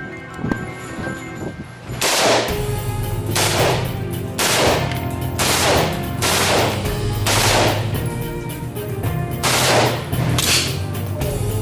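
Gunshots fired one at a time, about eight shots roughly a second apart, each with a short ringing tail, over music underneath.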